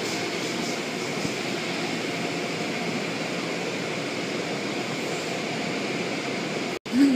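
Automatic car wash running, a steady rush of spraying water and spinning cloth brushes. Near the end it cuts out for an instant and a louder sound with a pitch starts.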